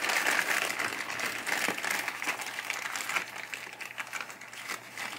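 Clear plastic parts bag crinkling and rustling as hands open it and handle the small parts inside, a continuous crackle of many small clicks.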